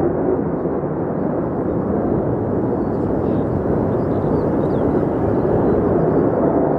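Jet engine noise from a Sukhoi Su-35 twin-engine fighter in flight overhead: a steady, deep rushing rumble with no clear pitch, holding level throughout.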